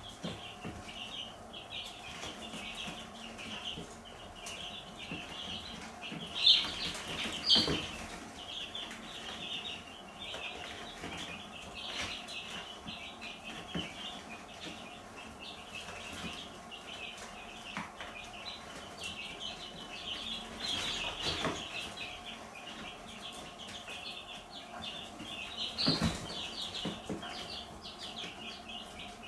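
A brood of young domestic chicks peeping continuously, many short high calls overlapping, with a few louder peeps rising above the rest now and then.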